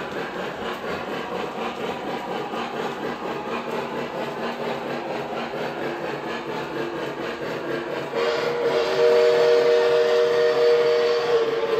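A model train's running sounds: a steady rumble with an even clicking beat. About eight seconds in, a loud multi-note horn chord sounds and holds for several seconds.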